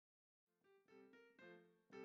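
Quiet keyboard music starting about half a second in after silence: a slow melody of single struck notes.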